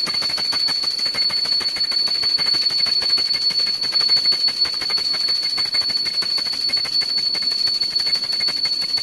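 A puja hand bell rung rapidly and without a break while the aarti flame is waved, giving a steady high-pitched ringing.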